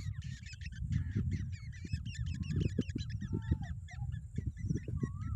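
Black drongos calling: a dense, rapid run of harsh, short squeaky chirps with a few slurred whistled notes, over a loud uneven low rumble.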